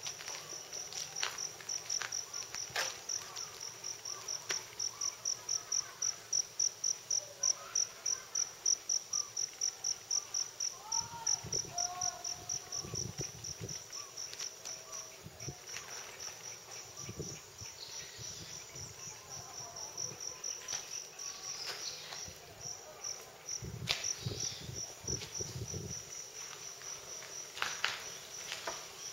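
An insect calling with a high, even pulsing chirp about four times a second, louder in the first half. A few low thuds of footsteps on rubble come in the middle and near the end.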